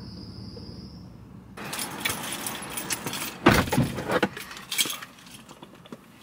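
Keys jangling and small objects clinking and rustling as someone moves about in a car's driver's seat, with one heavy thump about three and a half seconds in. Before that, for about the first second, a steady high-pitched whine.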